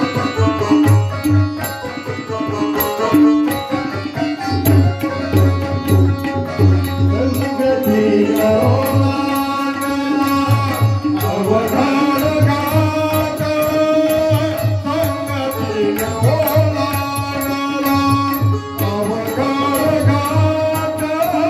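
Instrumental music of a Marathi devotional song: a steady tabla-style hand-drum beat under a gliding melody line, with high ticks keeping time.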